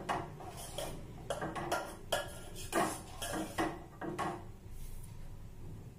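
Metal spoon stirring a stainless steel pot of milk and vermicelli, clinking and scraping against the pot again and again, then dying away near the end.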